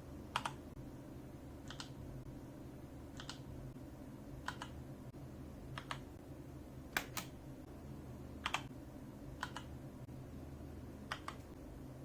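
Mechanical keyboard keys pressed slowly one at a time, a sharp click roughly every second or so, several strokes heard as two quick clicks. A low steady hum runs underneath.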